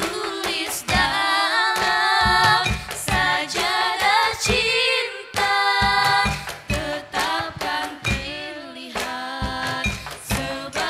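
A girls' nasyid group singing in harmony into microphones, over a steady beat of short low thumps.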